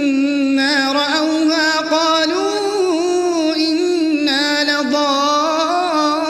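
A man's voice reciting the Quran in melodic tajweed style, drawing out long chanted notes with wavering ornaments around a steady pitch and no break.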